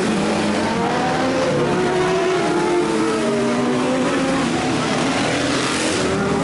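Racing sport motorcycles accelerating past on a street circuit, several engines running hard at once, their notes repeatedly climbing in pitch and breaking off.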